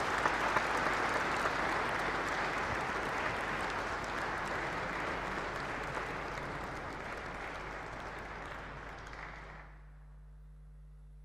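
Audience applauding steadily, slowly dying down and stopping near the end.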